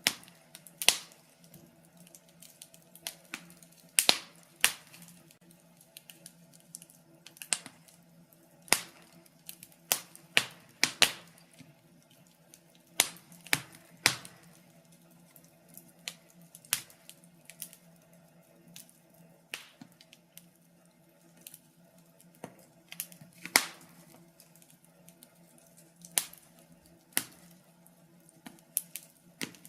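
Fire in a fireplace crackling: irregular sharp pops and snaps, sometimes several close together and at other times seconds apart, over a faint steady low hum.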